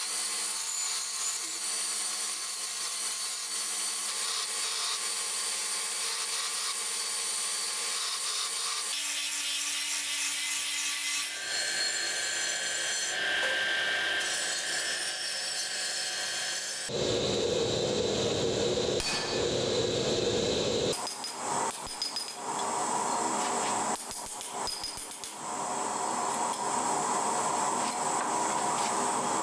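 Power tools grinding steel: a belt grinder running with a steady motor hum as a forged blade is pressed flat against the belt, then a bench grinder wheel working the steel. Later the grinding turns heavier and deeper, with a few sharp knocks.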